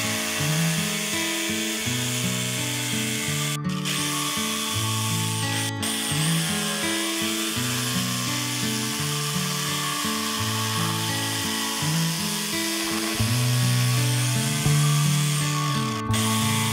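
Electric jigsaw cutting through a wooden pallet board, a steady sawing sound mixed under background music with a stepping bass line. The sound drops out briefly a few times.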